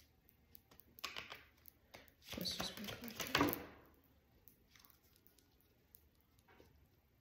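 Oracle cards being shuffled and handled: scattered soft taps and flicks, with a longer rustle of cards from about two to three and a half seconds in.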